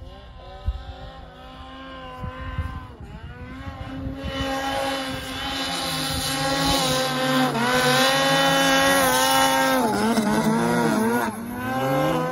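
Snowmobile engine running hard up a steep snow chute, growing steadily louder as it climbs closer. Its pitch dips and picks up again about ten seconds in.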